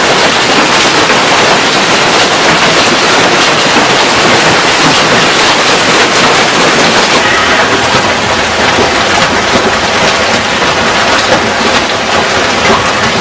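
Storm of wind-driven hail and heavy rain pelting down, a dense, steady rush of noise. About seven seconds in the sound changes abruptly to a duller, similar downpour.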